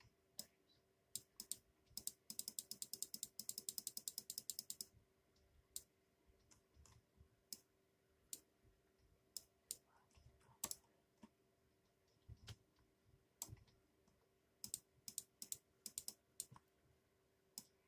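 Faint, scattered sharp clicks, with a rapid run of about ten clicks a second lasting a couple of seconds, starting about two seconds in.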